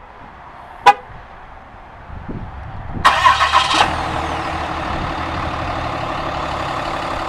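A horn chirps once about a second in as the remote start takes the command. About three seconds in, the 6.7-litre Cummins inline-six turbo diesel cranks and fires, louder for its first second, then settles into a steady diesel idle.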